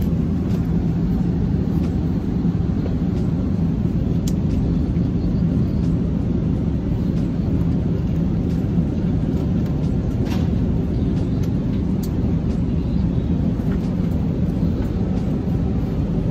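Steady, loud low rumble of a jet airliner's cabin in flight, unchanging throughout, with a few faint clicks.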